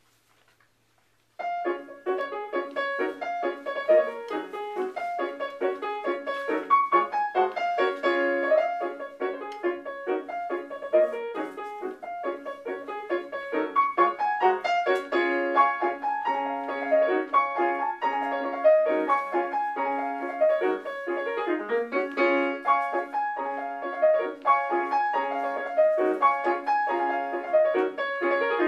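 Solo piano playing quick, continuous runs of notes, mostly in the middle and upper range. It begins about a second and a half in, after near silence.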